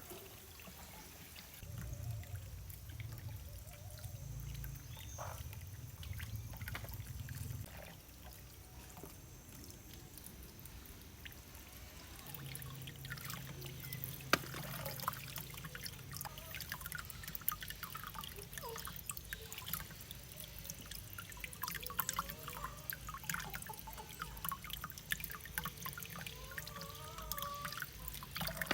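Water trickling and pouring, with scattered small clicks and knocks.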